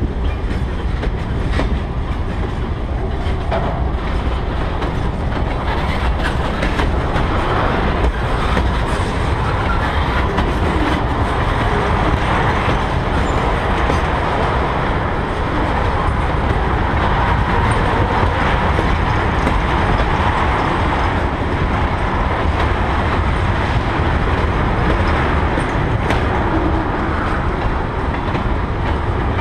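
Freight cars, flatcars and then tank cars, rolling past on steel wheels: a steady rumble of wheels on rail with clacks at the rail joints.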